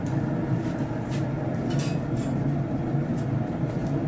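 Steady low hum of a pellet smoker's fan running with the lid open, with a few faint crinkles and ticks from the aluminium foil wrapping the ribs as it is handled.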